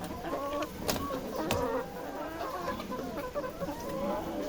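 Many laying hens clucking and calling over one another in a layer house, with a couple of sharp clicks about a second in.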